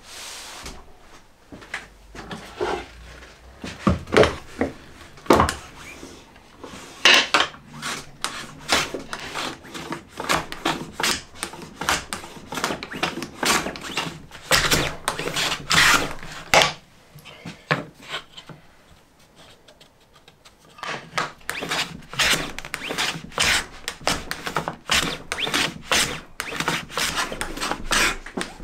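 A hand plane run on its side along a shooting board, shaving the ends of pale sycamore box pieces in a quick series of rasping strokes, with a pause of a few seconds in the middle. A few knocks of wood being handled come before the planing starts.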